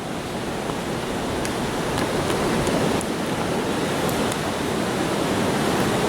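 Steady rushing of river rapids at the falls: a continuous even noise that swells slightly.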